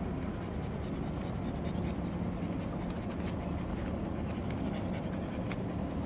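Steady low rumble of a docking cargo ship's engine, with faint scattered ticks.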